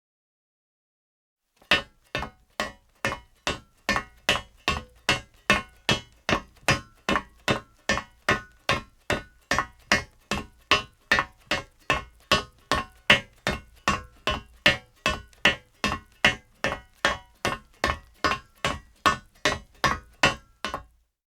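A man's leather-soled shoes walking on metal, steady footsteps at about two steps a second. The steps begin after a second and a half of silence and stop just before the end.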